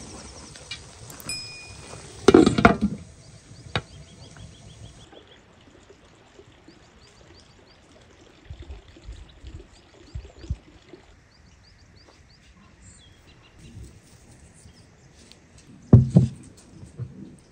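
A few knocks and thunks: a loud cluster about two seconds in, lighter ones in the middle and a strong thump near the end. Faint bird chirps can be heard between them.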